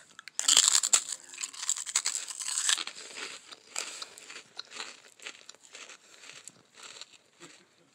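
Biting into and chewing a crunchy, sweet iced Korean rice cracker close to the microphone. A loud spell of crunching comes in the first few seconds, then the chewing crunches grow quieter and more spread out.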